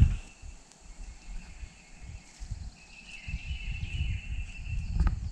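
Outdoor field ambience: an uneven low rumble on the microphone, joined about three seconds in by a thin, high, steady buzz typical of an insect, and a couple of sharp clicks near the end.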